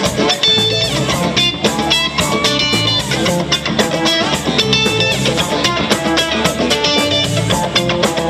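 Live jam band playing: electric guitars ringing out notes and chords over bass and drum kit, with a steady beat.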